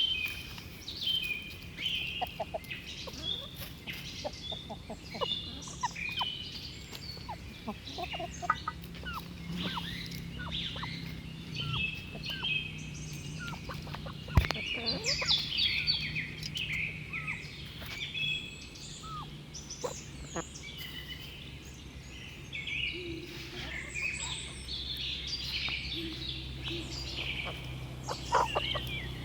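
Small birds chirping and twittering continuously, with domestic chickens calling now and then beneath them. A single sharp tap sounds about halfway through.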